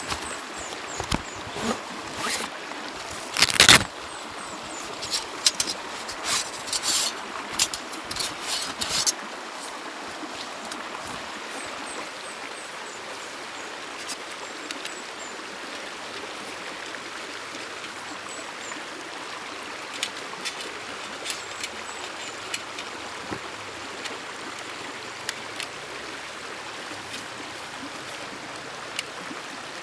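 Steady rushing of a river. A string of sharp clicks and knocks comes over the first nine seconds, the loudest about three and a half seconds in, and a few scattered clicks follow later.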